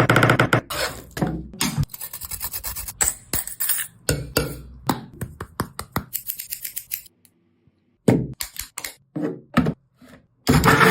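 Kitchen food-preparation sounds in quick succession: utensils and food scraping, rubbing and clinking. There is a short pause about seven seconds in.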